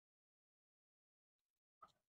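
Near silence, then near the end a brief faint rustle and click of roasted peanuts being rubbed between the hands to loosen their skins.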